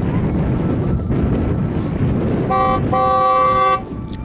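A car horn sounding twice, a short beep and then a longer blast, over a steady low rumble.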